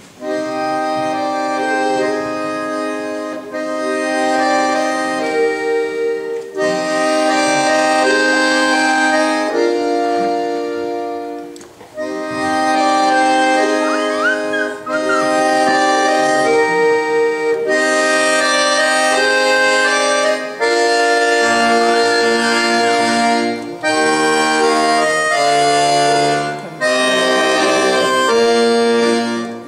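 Piano accordion played solo: held chords and a melody in phrases, each broken by a brief pause. The playing begins abruptly at the start.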